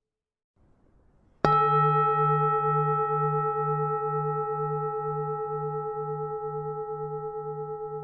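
A Vietnamese temple bell struck once, about a second and a half in, then ringing on with a low wavering hum under several steady higher tones, slowly fading.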